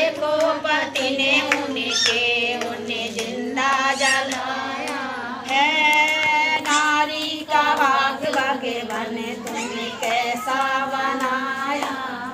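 A woman singing a Hindi folk-style song unaccompanied, in long held phrases, clapping her hands in time.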